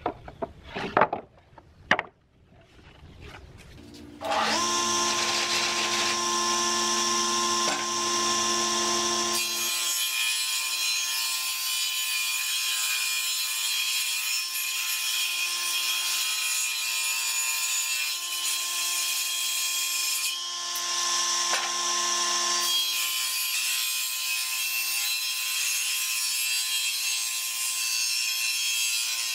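Wooden boards knock and clatter as a slab is pulled from a stack. About four seconds in, a combination jointer-planer starts running with a steady whine, and a rough wooden slab is fed across its cutter head, the cutting hiss easing off briefly about two-thirds of the way through before it resumes.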